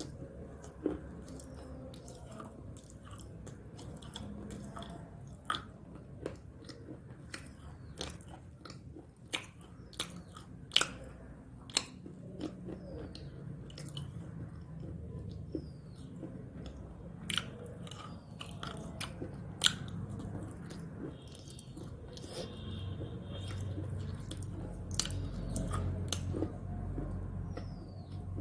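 Someone biting into and chewing crunchy snack sticks: irregular sharp crunches, a few of them much louder, over quieter chewing.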